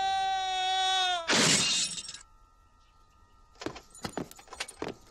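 A man's long, high-pitched scream as he is thrown over a battlement, dipping in pitch at the end and cut off by a loud crash about a second and a half in. A few seconds later come several sharp taps.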